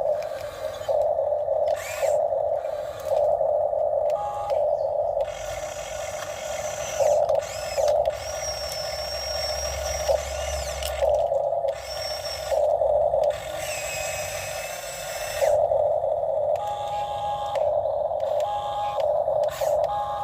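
Huina RC excavator working, its motor and gear whine starting and stopping in short stretches as the arm and bucket move, with a few higher whines in between.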